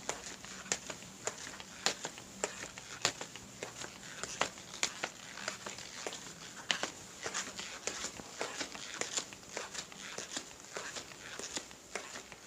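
Footsteps walking: a run of sharp, crisp steps, roughly two a second, with lighter scuffs between them.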